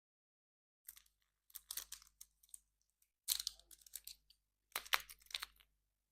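Surprise-egg packaging being torn open and crinkled by hand, in three bursts of crackling.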